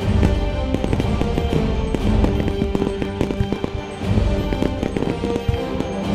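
Fireworks going off in rapid succession, many sharp bangs and crackles, over music played with the show.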